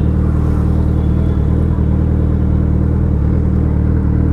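Suzuki Hayabusa's inline-four engine running steadily while the motorcycle is ridden, a loud, even engine note that holds the same pitch throughout.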